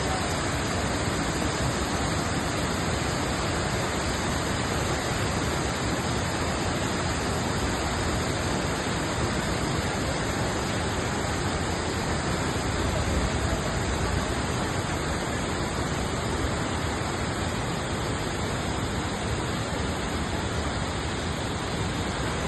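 The Kravice waterfalls: a steady, even rush of falling water, unchanging in level throughout.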